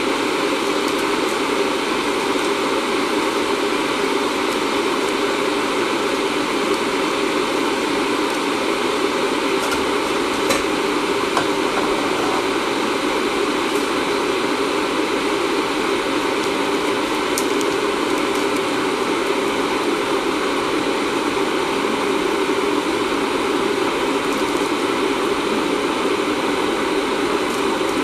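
Loud, steady rushing noise with no change in level, with a faint click about ten seconds in and another about seventeen seconds in.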